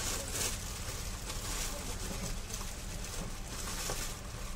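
Thin plastic bags crinkling and rustling as they are handled, in irregular crackly bursts, over a faint steady low hum.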